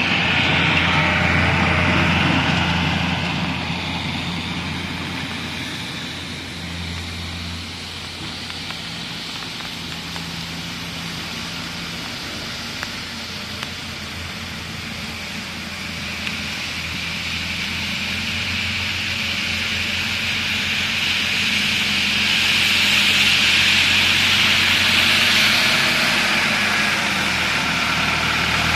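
Snow-clearing machinery: a tractor engine running under the hiss of a rotary brush sweeping snow off the road. The hiss is loud at the start, fades through the middle and builds again to its loudest near the end, where the Massey Ferguson tractor and its Italclean snow brush pass close by.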